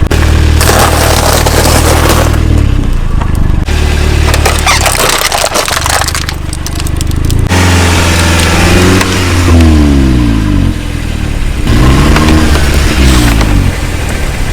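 Car engine running, its pitch sweeping up and down in the second half, while objects crunch and crackle under the tyres in several stretches during the first half.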